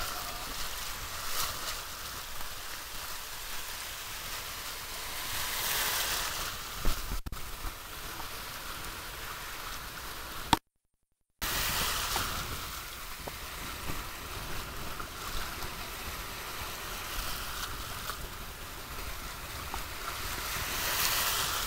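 Shallow seawater washing and lapping at the shoreline, with small waves swelling in twice, and wind on the microphone. The sound cuts out completely for under a second about halfway through.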